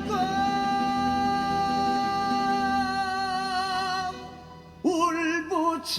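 A singer holds one long note for about four seconds as it fades. After a brief pause they begin the next phrase with an upward slide.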